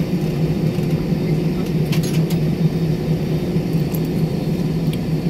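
Cabin noise of a jet airliner taxiing after landing: a steady engine and airframe rumble with a constant low hum.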